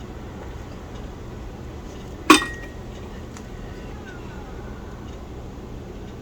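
A single sharp clink of a small hard object knocking against a hard surface about two seconds in, ringing briefly, over a steady low background hum.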